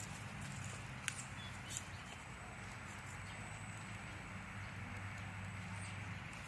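A 1/10-scale Axial Barrage RC rock crawler crawling over the course, its motor and gears making a faint low whir, with two sharp clicks about a second in.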